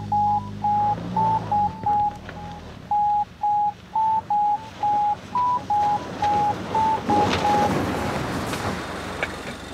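A string of short electronic beeps at two alternating pitches, unevenly spaced, stopping a little before the end. A low engine hum sits under the first couple of seconds, and a rising rush of engine and tyres comes in near the end.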